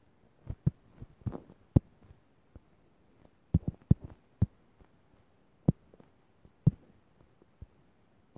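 Irregular dull taps and thumps, about a dozen, from fingers tapping and pinching on a phone's touchscreen as it draws and zooms, picked up by the phone's own microphone.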